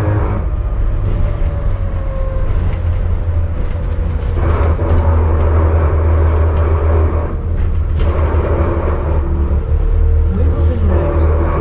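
Onboard sound of an ADL Enviro400 MMC hybrid double-decker bus on the move: a steady low drone from the drivetrain, with road and running noise swelling twice.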